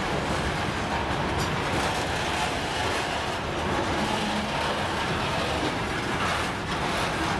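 Freight train of covered hopper wagons and open gondolas rolling past: a steady noise of steel wheels running on the rails.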